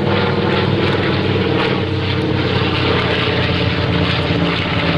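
A WWII propeller warbird's piston engines running loud and steady as the aircraft flies a pass.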